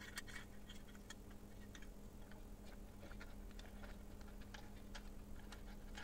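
Faint, scattered light clicks and taps of metal parts being handled: a tower CPU cooler and a loose standoff screw being refitted to a motherboard inside a PC case, over a low steady hum.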